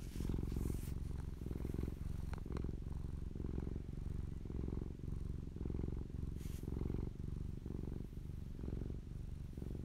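Domestic cat purring steadily at close range, the purr swelling and easing about once a second with its breathing.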